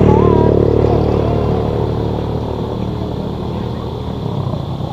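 A passing motor vehicle's engine, loudest at the start and fading steadily as it moves away.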